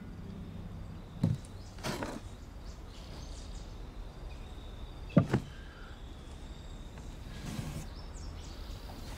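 Quiet outdoor ambience with a steady low background, broken by a few short knocks and scuffs from a man kneeling in loose soil, the sharpest a double knock about five seconds in.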